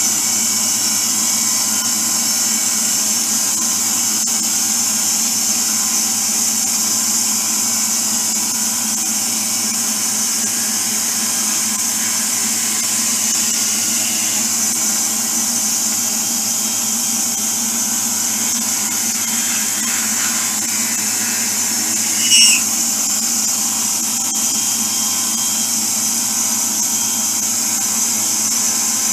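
Drill press motor running steadily while its bit drills into a thin wooden disc, with a brief squeal about three quarters of the way through.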